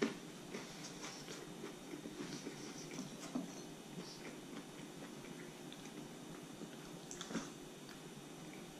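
Faint chewing of a mouthful of toasted thick-sliced bread, with scattered small mouth clicks.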